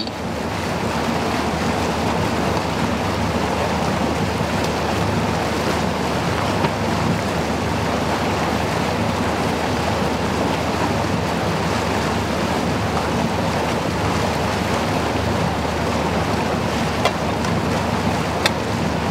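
Motor vessel under way: the steady rush of the bow wave and wake along the hull, with the low drone of the engine underneath. A couple of faint ticks near the end.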